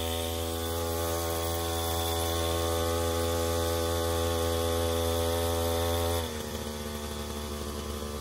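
Backpack brush cutter's small engine running steadily at high speed, then throttled back to a lower, quieter speed about six seconds in.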